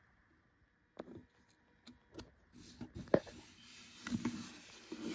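Handling noise of an adhesive foam gasket being pressed into place around a motorcycle air box opening: rubbing and rustling with scattered knocks. The loudest is a sharp knock about three seconds in, and the first second is nearly quiet.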